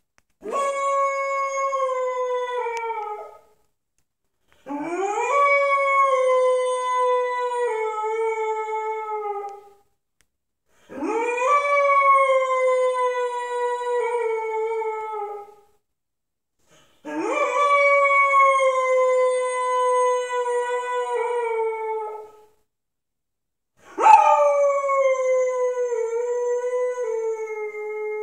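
Young pit bull howling: five long howls, each swooping up in pitch at the start, then held and sliding slowly down in steps before trailing off.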